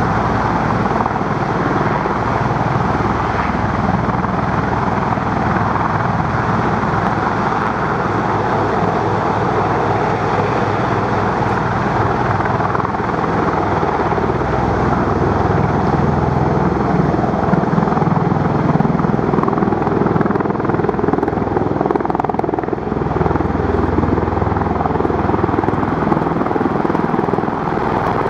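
Helicopter rotors beating steadily overhead with a continuous rush of engine noise, growing a little louder past the middle.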